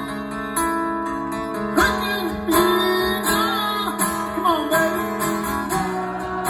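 Acoustic guitar strummed in a live solo performance, with a gliding vocal melody sung over it in the middle of the stretch.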